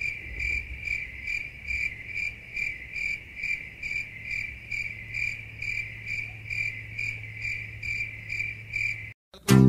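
Cricket chirping in an even, unbroken rhythm of about three pulses a second, with a faint low hum underneath in the second half. It cuts off suddenly near the end.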